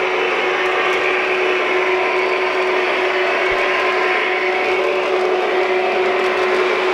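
O scale model train running on three-rail track: a steady whir of the MTH U30C locomotive's motors and the freight cars' wheels rolling, with a constant hum underneath.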